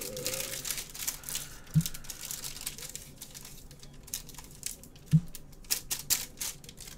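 Small handling noises at a table: light crinkling and scattered clicks, with two soft thumps, one a couple of seconds in and one about five seconds in.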